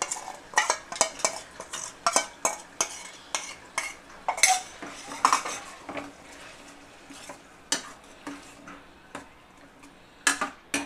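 Steel ladle clinking and scraping against a stainless steel pan and bowl as masala paste is stirred into frying onions and tomatoes. The knocks are frequent at first and thin out later, with two sharp clinks near the end.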